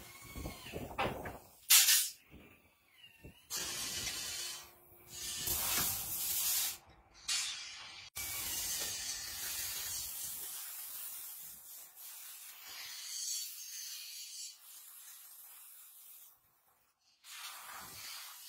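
Aerosol brake cleaner sprayed onto a disc brake caliper in a series of hissing bursts, the last one long and slowly fading. Before the spraying there are a few clicks and knocks from hands working the caliper.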